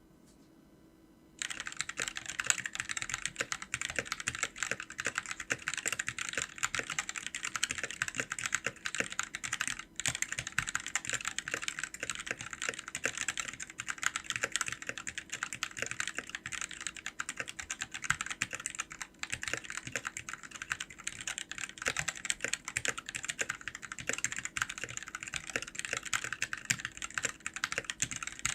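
Sades Kunai wireless 65% mechanical keyboard with Gateron switches being typed on fast and continuously, dense key clacks. The typing starts after a short pause about a second in and breaks off briefly once near the middle.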